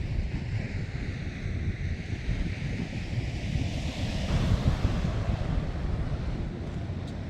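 Sea waves washing, one swelling to a louder hiss about four seconds in, with wind rumbling on the microphone.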